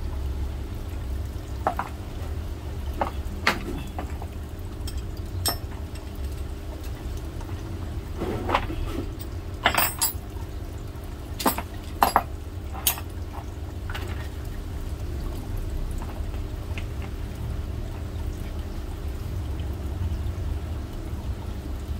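Scattered clinks and knocks of small metal tool and drill parts being handled while a hand drill's chuck is worked on, over a steady low hum. The knocks bunch up about halfway through, and in the last third only the hum is left.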